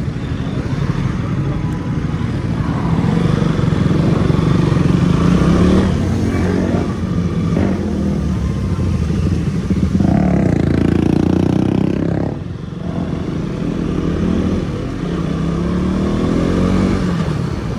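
Motorcycle engine running while riding, its pitch rising and falling with the throttle and easing off briefly about twelve seconds in.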